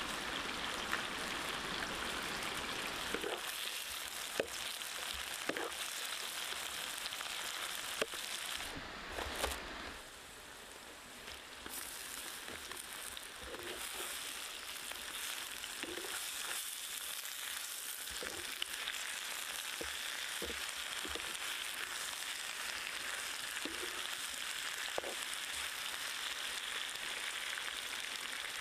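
Crocodile meat frying: a steady sizzling hiss with scattered sharp pops. The sizzle briefly fades about ten seconds in, then picks up again.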